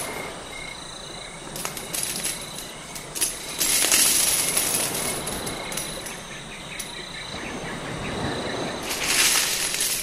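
Handfuls of gold coins and jewellery clinking and jingling as they are run through the fingers, with scattered clinks and two longer bursts of jingling, the louder about four seconds in and another near the end. Crickets chirp steadily over a soft background of surf.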